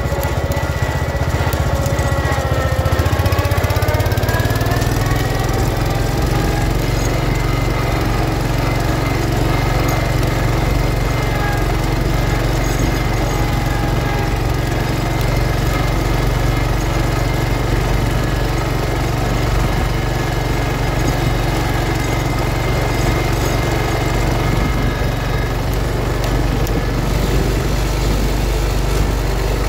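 1971 John Deere 140 H3 garden tractor's engine running steadily under load as it pulls a single-bottom sleeve-hitch plow through sod. Its pitch sags about two seconds in, then climbs back and holds.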